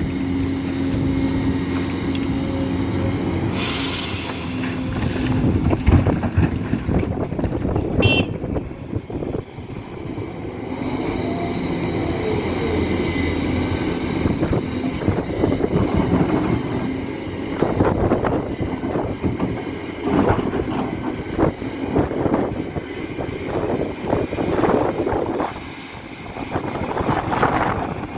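Hidromek 500LC 50-tonne excavator's diesel engine running under load while it digs in stony ground, with irregular knocks and scrapes of the bucket and rocks, heaviest in the second half. A short hiss sounds about four seconds in.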